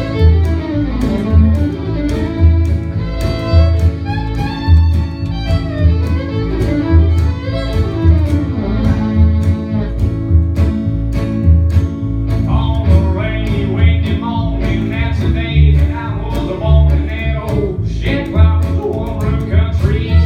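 A live acoustic country string band: upright bass plucking a steady beat under acoustic guitar and fiddle, with the fiddle lines getting busier about two-thirds of the way through.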